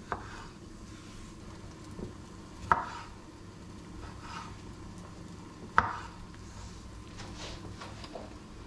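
Chef's knife slicing cherry tomatoes on a wooden cutting board: sharp knocks of the blade hitting the board every few seconds, with softer cutting and scraping sounds between.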